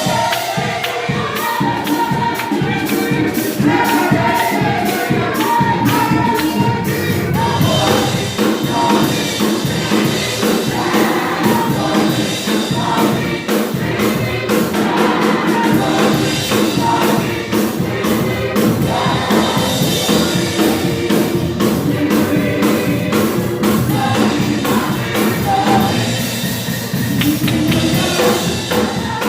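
Gospel choir singing together in full voice over instrumental accompaniment with a steady beat.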